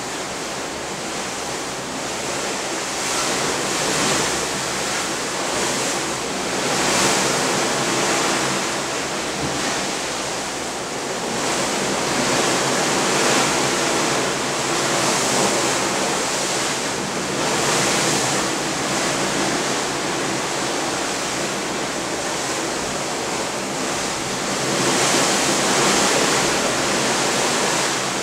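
Seawater rushing and breaking along a cruise ship's bow as the ship moves under way. The hissing wash is continuous and swells and eases every few seconds.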